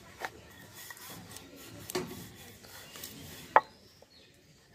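Wooden rolling pin rubbing over flatbread dough on a floured wooden board, with a few knocks of wood on wood. The loudest is a sharp knock about three and a half seconds in, after which the rubbing stops.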